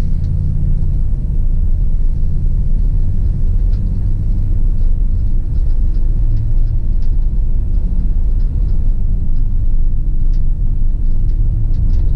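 Car driving slowly on a paved road, heard from inside the cabin: a steady low rumble of engine and tyres, with faint scattered light ticks.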